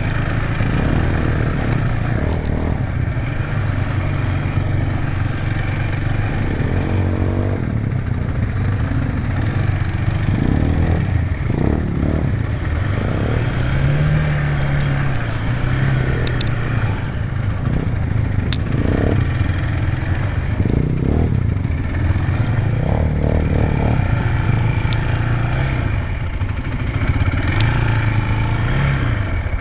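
ATV engine running while the quad is ridden off-road, its revs rising and falling, with a few sharp clicks and some clatter.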